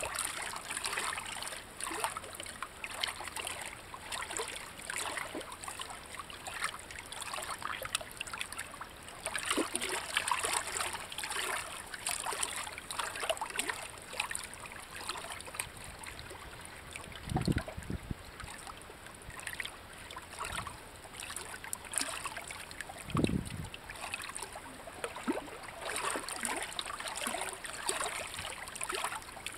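Shallow water trickling and lapping among rocks: a steady watery hiss flecked with small ticks and splashes. Two short low thumps stand out, one a little past halfway and another about six seconds later.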